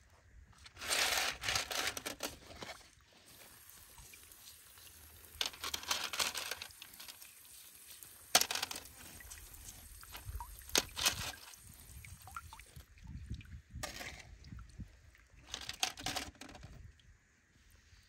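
Rough gemstone pebbles clattering and scraping on a perforated metal sieve tray as gloved hands rake and sort them, in separate bursts every few seconds, with one sharp clack near the middle.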